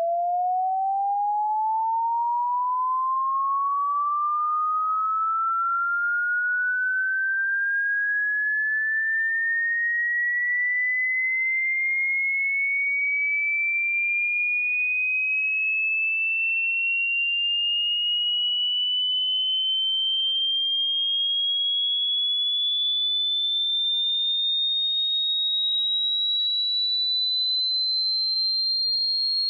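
Electronic sine-wave tone sweeping slowly and smoothly upward in pitch, from a mid whistle to a high whine, at an even loudness.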